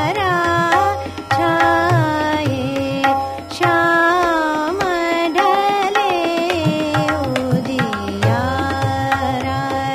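Indian classical music in raga Hansadhwani: the sthayi of a composition, a melodic line of held notes joined by slides between pitches, accompanied by tabla.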